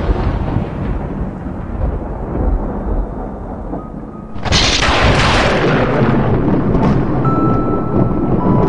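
A loud sudden boom about four and a half seconds in that dies away slowly over a deep rumble, following an earlier boom that is still fading at the start. Near the end, a few held music notes come in.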